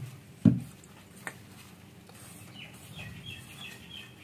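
A hand working maida flour and water into dough in a steel bowl: a low rustle with a dull thump about half a second in. Birds chirp faintly in the second half.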